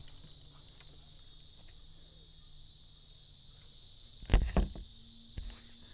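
Steady high-pitched insect chorus, with two or three loud knocks a little over four seconds in and a softer one about a second later.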